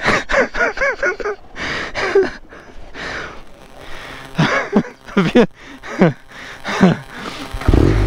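A man laughing hard in wheezing bursts, gasping for breath between them.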